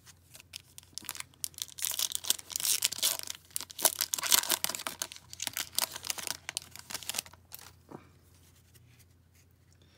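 A hockey card pack's foil wrapper being torn open and crinkled: a dense crackling rustle that lasts about six seconds, preceded by a few light clicks of handling.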